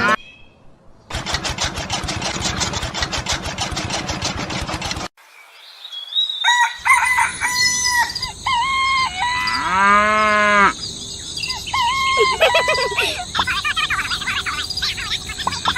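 Chickens clucking and a rooster crowing once, about ten seconds in. Before them, after a second of near quiet, there is a steady rapid rattle lasting about four seconds that stops suddenly.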